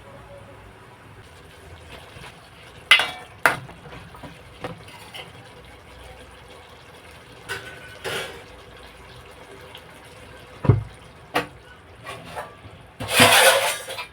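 Kitchen utensils and vessels being handled: scattered clinks and knocks, a dull thump about eleven seconds in, and a noisy rush of about a second near the end.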